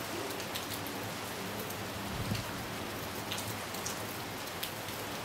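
Steady rain falling, with individual drops ticking close by, and a single dull thump about two seconds in.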